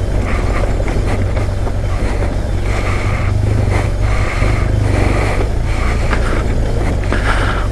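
Honda Transalp motorcycle engine running steadily at low speed on a rough, stony track, with a constant low hum and a rough mechanical and gravel noise over it.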